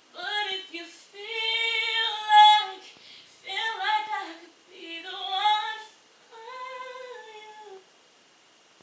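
A girl singing unaccompanied behind a closed bedroom door, in five sung phrases with short breaths between them.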